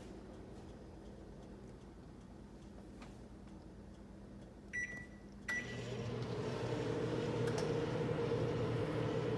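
Microwave oven keypad beeping twice, then the oven starting up and running with a steady hum.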